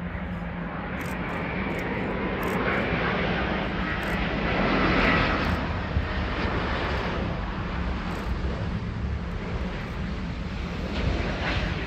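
Airbus A350 airliner's Rolls-Royce Trent XWB jet engines on final approach to landing, the engine noise swelling to its loudest about five seconds in as the jet passes, then easing off, with a faint thin whine over the rush.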